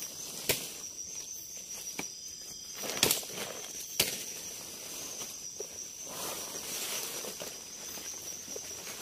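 Steady high-pitched drone of forest insects, with four sharp knocks, the loudest about three and four seconds in.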